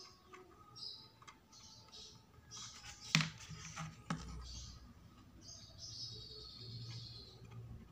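Printed paper model parts rustling and sliding as they are handled and glued, with a sharp tap a little past three seconds in and another about a second later.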